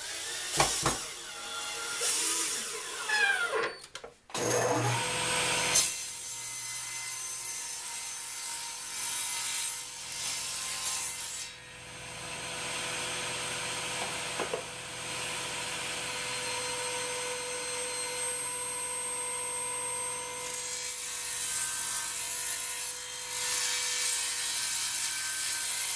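A cordless drill whirs as it drives screws into plywood. Then a Delta table saw starts and runs steadily, its blade cutting through the wooden sled's base and fence as the sled is pushed through. The saw runs quieter between the two cutting stretches.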